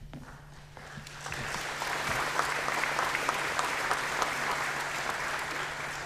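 Audience applauding, swelling about a second in and dying away near the end.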